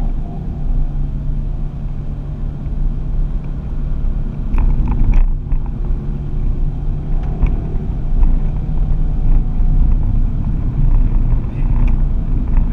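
Ford Focus ST driven hard on a racing circuit, heard from inside the cabin: a steady low engine hum under dense tyre and road rumble. A few sharp knocks come about five and seven and a half seconds in.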